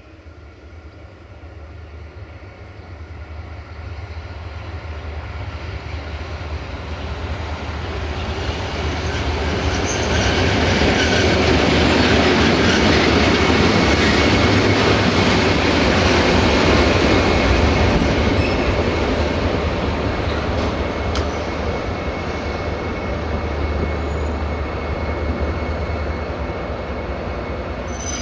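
MÁV M62 diesel locomotive's two-stroke V12 engine running under load as it pulls a freight train past. It grows steadily louder as it approaches and is loudest around the middle as it passes close by. A thin wheel squeal from the train runs through the second half.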